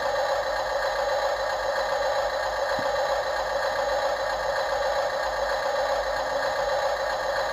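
Radio-controlled model construction machine running steadily: an even mechanical whir with a light rattle and no change in speed.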